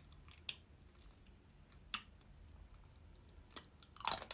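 Chewing chocolate close to the microphone: a few faint, sharp mouth clicks about a second and a half apart, with a quick cluster of them near the end.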